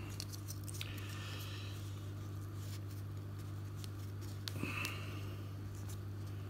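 Faint clicks and light scraping as a heat-shrunk plastic battery connector is turned and pressed in the fingers, over a steady low electrical hum.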